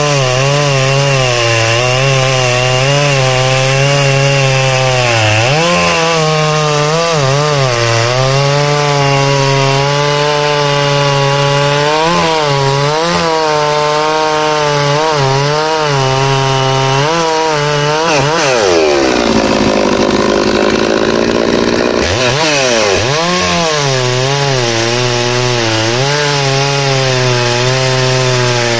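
Holzfforma G666 two-stroke chainsaw, a Stihl 066/660 clone running on its out-of-the-box carburettor settings, cutting through a thick log at full throttle; its engine pitch wavers as the chain loads up in the wood. About two-thirds of the way through, the engine speed climbs sharply for a few seconds, then drops back under load.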